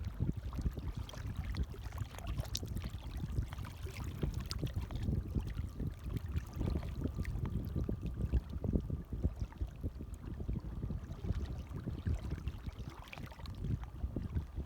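Gentle waves lapping, a steady run of small irregular splashes of water.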